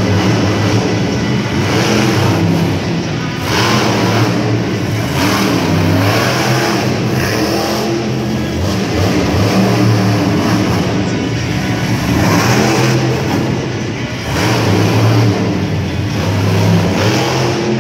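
Monster truck engines revving hard, rising and falling again and again as the trucks race over the dirt track.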